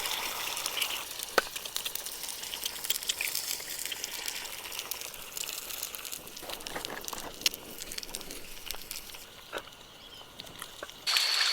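Scattered light rustling and small clicks over a steady high outdoor hiss. Near the end, the sound cuts abruptly to a louder hiss carrying a steady high-pitched tone.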